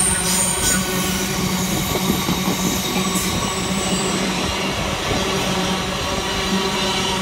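Container wagons of a freight train running through at speed: a steady rumble of steel wheels on the rails, with a brief high squeal near the start.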